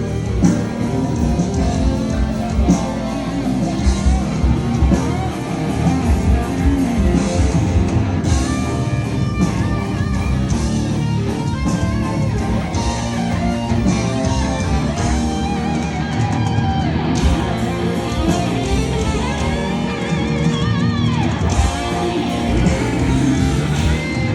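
Live rock band playing an instrumental passage: electric guitars over a drum kit, with a few bent guitar notes near the end.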